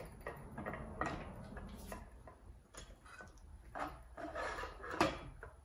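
Scattered light metal clicks, knocks and scrapes, about one a second, as a 1960 Elgin 18 hp outboard's lower unit is worked up into the midsection housing, its drive shaft and water tube being guided into place.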